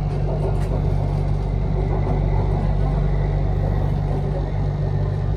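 Interior running noise of a BTS Skytrain EMU-A1 car in motion: a steady low rumble and hum from the train running along the track.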